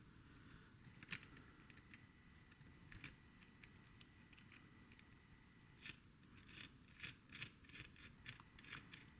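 Faint small metal clicks and scrapes of hand tools working on a disassembled padlock as its core is freed. The clicks are scattered at first and come more often, a few a second, in the last three seconds.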